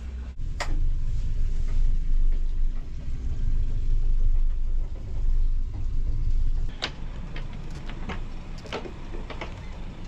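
Low rumble that grows louder about half a second in and stays strong for about six seconds, then drops away, leaving a quieter stretch with a few short clicks and knocks.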